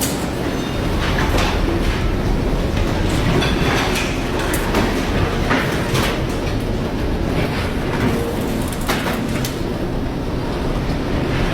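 A ship labouring through a storm at sea: a loud, steady low rumble and rush of noise, broken by irregular sharp knocks and rattles.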